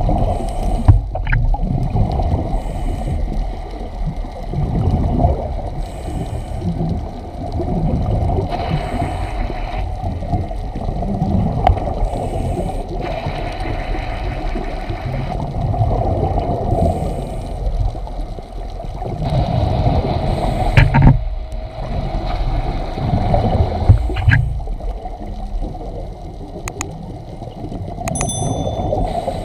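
Underwater recording with a steady low water rumble and gurgling. Three louder rushes of bubbling noise come at intervals of about five seconds, the sound of a scuba diver's exhaled bubbles.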